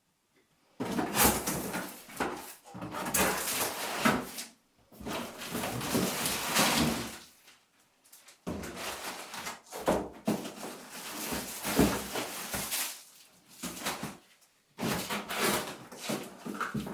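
Cardboard box and packaging being handled and opened: irregular spells of scraping and rustling with knocks, broken by short pauses.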